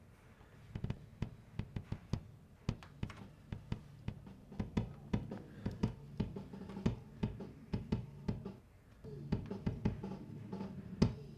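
Recorded drums of a metal song playing back quietly from a multitrack session: sharp drum hits, several a second, over a low steady sound.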